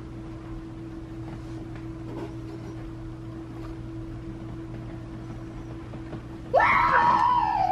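Steady low electrical hum, then, near the end, a young child's loud high-pitched vocal sound that rises briefly and falls in pitch, lasting a little over a second.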